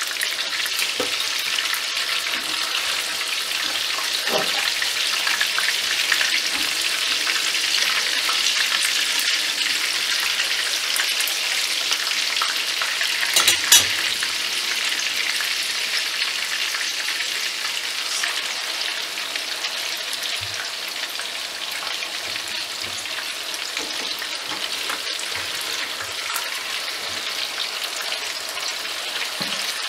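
Chicken kebab patties shallow-frying in hot oil in a frying pan: a steady sizzle, with a brief louder burst about halfway through.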